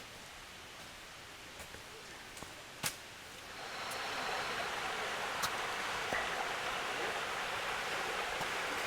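Steady rush of flowing water from a mountain stream. It swells to a louder, fuller rush a little past a third of the way in and then holds steady, with a single sharp click just before that.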